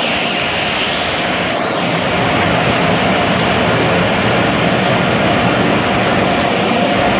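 Car wash tunnel's air-dryer blowers running: a steady loud rush of air with a constant whine.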